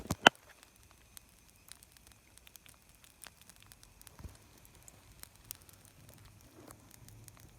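Small campfire of wet brushwood barely burning, giving sparse, faint crackles and pops, the sign of damp wood that is struggling to catch. One much louder sharp click comes just after the start.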